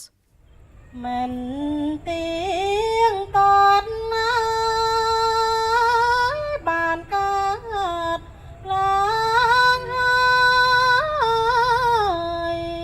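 A woman's voice singing Smot, the Cambodian Buddhist chant. She holds long notes and ornaments them with turns and slides, sung alone without instruments.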